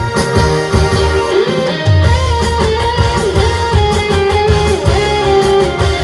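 Upbeat band backing music for a live song, with a strong bass and beat under a sustained, gliding electric guitar lead melody.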